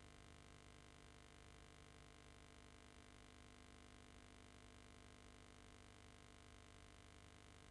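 Near silence: a faint, steady electrical hum on an otherwise empty tape soundtrack.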